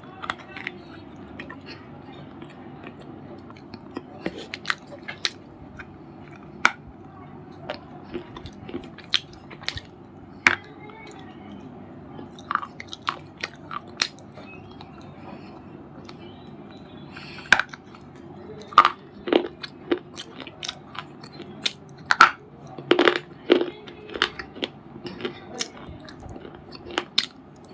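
A white bar crunching and snapping in sharp, separate cracks. They come sparsely at first, then in quicker runs in the second half.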